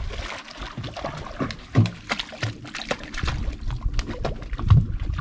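Water sloshing against the side of a small boat, with scattered clicks and two louder low knocks, one about two seconds in and one near the end, as fishing line and tackle are handled over the side.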